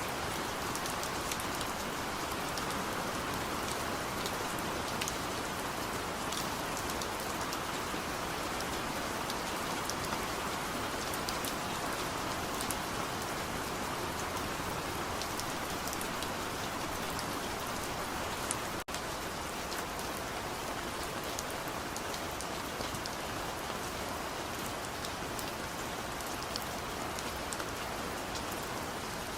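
Steady rain falling, with individual drops heard as many small sharp ticks on a surface. The sound cuts out for a split second about two-thirds of the way through.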